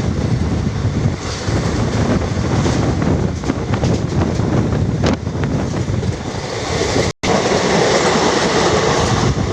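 Passenger train running along the track: a steady rumble and rattle of wheels on rails. The sound cuts out for an instant about seven seconds in.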